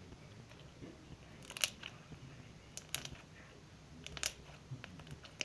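Homemade glue-and-body-wash slime being squeezed by hand, giving short crunchy crackles and pops from the soap bubbles trapped in it, three louder ones among softer clicks.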